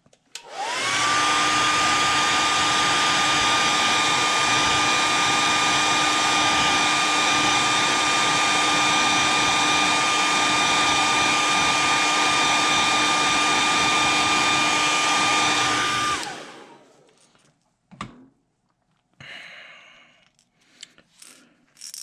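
Hair dryer switched on, its motor spinning up with a rising whine, then blowing steadily to dry freshly airbrushed paint on a lure. It is switched off about 16 seconds in and winds down.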